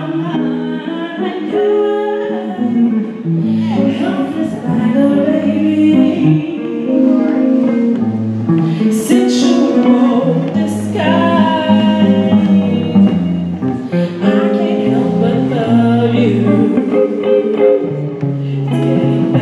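Female vocalist singing a soulful ballad live into a microphone, accompanied by guitar.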